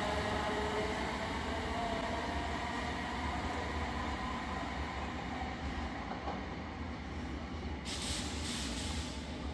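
Electric multiple-unit train running, its rumble slowly fading, with a few steady tones dying away in the first couple of seconds. A short hiss of air about eight seconds in.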